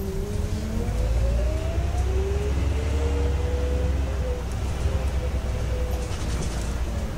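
Scania city bus engine and drivetrain heard from inside the cabin while pulling away: a low rumble that grows louder about a second in, with a whine that climbs, drops back about two seconds in at a gear change, then climbs again and levels off.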